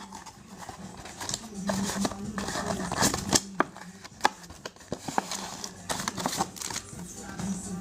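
Trading cards and foil pack wrappers being handled: a run of irregular clicks, flicks and rustles as cards are slid off one another, over a faint steady hum.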